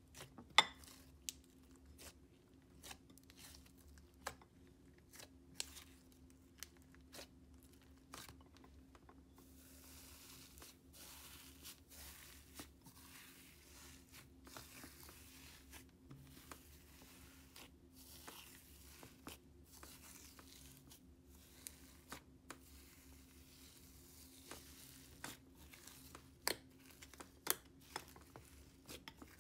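Quiet crunching and crackling of slime mixed with fake-snow granules being squeezed and kneaded by hand in a glass container, with many small sharp clicks and pops. The crackle grows denser about a third of the way in.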